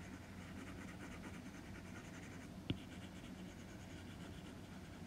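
Stylus tip stroking across the iPad's glass screen while blending, a faint scratchy rubbing, with a single sharp tap about two and a half seconds in.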